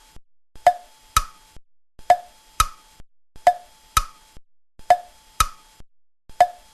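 Percussive sound effect like a wood block: a lower click followed half a second later by a higher click, the pair repeating steadily about every one and a half seconds, five or six times.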